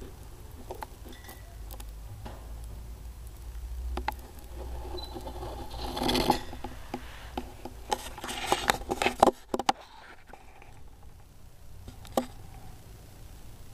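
Handling noise from a handheld camera being moved about: scattered clicks and knocks, a scraping rustle about six seconds in, and a quick run of clicks and scrapes a couple of seconds later.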